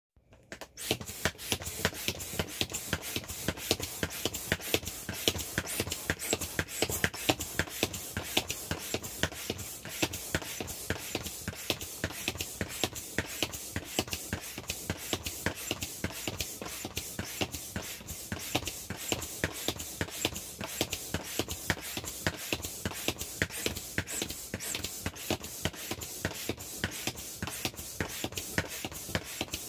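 Air pump pushing air through a hose into a vinyl inflatable elephant, running with a rapid, even pulsing of several beats a second.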